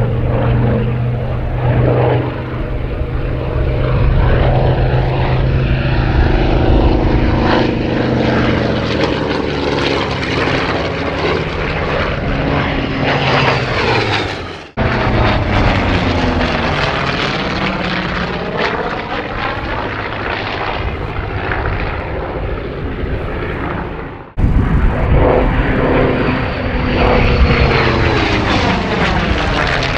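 Warbird radial engines and propellers in low display passes, the pitch falling as each aircraft goes by. First comes the Grumman Avenger's Wright R-2600 Cyclone radial. After abrupt cuts about halfway and about 24 s in, a Vought F4U-5NL Corsair's Pratt & Whitney R-2800 radial passes near the end.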